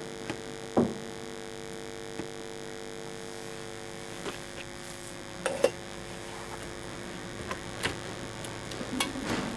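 Steady electrical mains-type hum, with a few light clicks and taps scattered through it.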